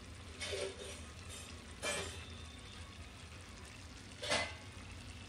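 Mutton boti (goat tripe) curry simmering in a pan, with three short pops about half a second, two seconds and four seconds in over a steady low hum.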